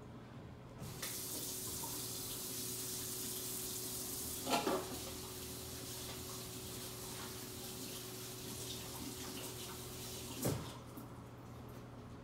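Kitchen faucet running into the sink: a steady rush of water that starts about a second in and stops after about nine seconds, with a knock partway through and another as the water is shut off.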